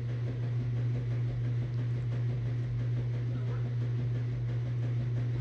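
A steady low hum, unchanging throughout, as from a motor or appliance running.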